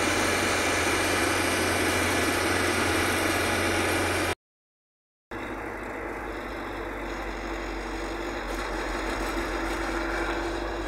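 Steady drone of a diesel bus engine with road noise, heard from inside the cab while cruising on a highway. The sound cuts out completely for about a second near the middle, then returns quieter.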